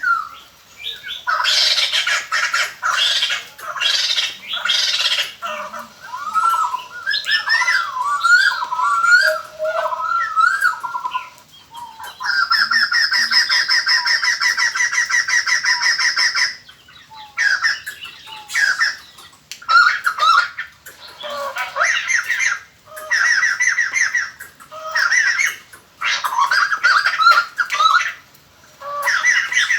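Laughingthrushes calling in loud chattering bursts of squawky, pitch-bending notes, with one long, rapid, rattling cackle in the middle; these are lure calls played to attract wild birds.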